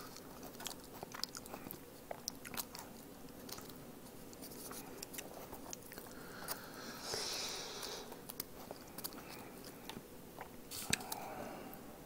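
Quiet eating sounds: chopsticks and fingers pulling meat off a pork bone, scattered light clicks and soft chewing, with a short breathy hiss about seven seconds in.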